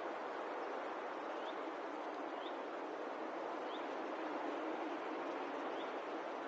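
Outdoor evening ambience: a steady hiss with a faint, short rising chirp repeating roughly once a second.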